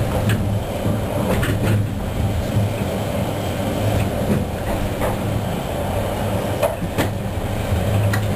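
Toyohashi Railroad T1000 low-floor LRV tram running, heard from inside the car: a steady low rumble and motor hum with scattered sharp clicks and knocks.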